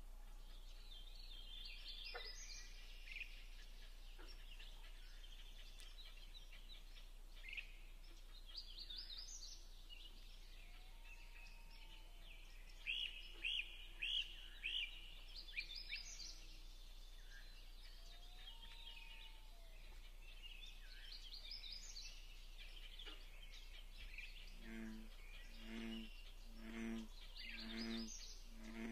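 Wild songbirds singing and chirping in a quiet natural ambience, with a run of bright, quick chirps partway through. Near the end, a low, pulsing call joins in, repeating about every 0.7 seconds.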